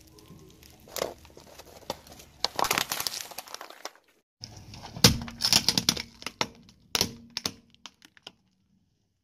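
Car tyre rolling over plastic cups packed with crunchy puffed snacks, crackling and crunching them flat. After a short break, a second run of sharp cracks and crunches as the tyre crushes another object.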